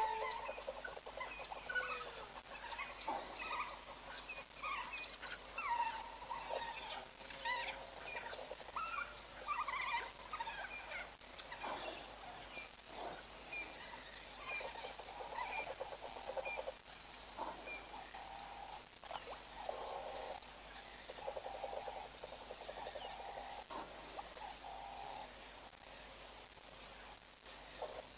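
Insect chirping steadily at dusk, a high-pitched chirp repeating about twice a second, with fainter scattered animal calls beneath it.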